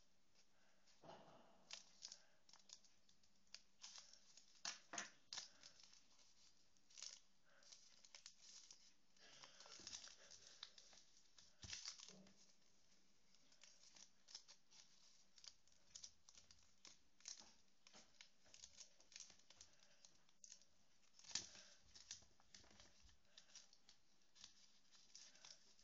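A sheet of paper rustling and crinkling in many short, faint bursts as it is cut with scissors and then creased and folded by hand.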